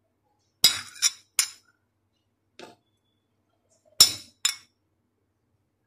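A spoon clinking against a glass bowl as chopped pineapple is scooped out. There are three quick, sharp clinks near the start, a faint tap midway, and two more clinks about four seconds in.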